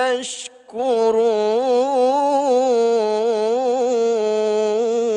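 A man reciting the Quran in melodic tilawah style, drawing out the final word of the verse ('yashkurun') as one long note. After a brief break near the start, the note wavers in ornamented turns, then settles on a steady held pitch near the end.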